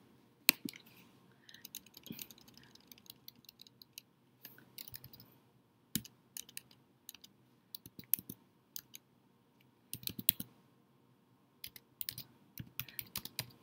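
Computer keyboard typing: irregular runs of light keystrokes with short pauses between them, as a word is deleted and retyped.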